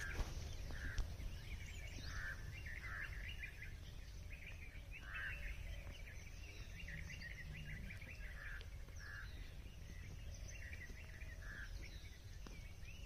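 Wild birds calling in dry forest: short calls repeated every second or so, over a steady low rumble.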